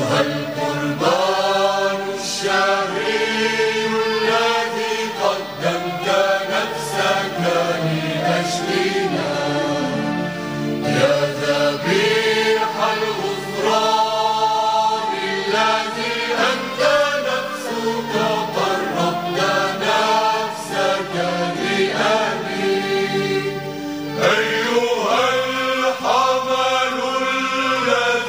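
A Christian hymn, sung in a slow chant-like style by a choir over instrumental accompaniment.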